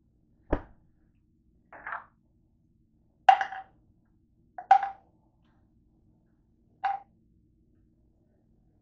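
Things being handled and set down on a tabletop: five short separate knocks and rustles a second or two apart, the first one a dull thump.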